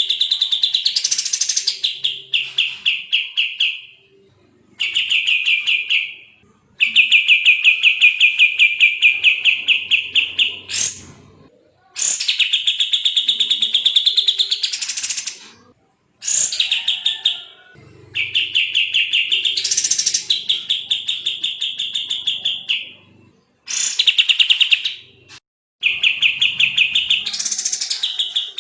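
Kapas tembak bird singing fast, tightly packed trills: phrases of rapidly repeated notes, each a few seconds long with short breaks between, several ending in a quick rising sweep.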